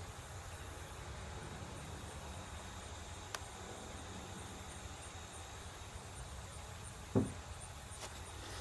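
Faint steady background hum and hiss, with one light click about three seconds in and a brief low sound about seven seconds in.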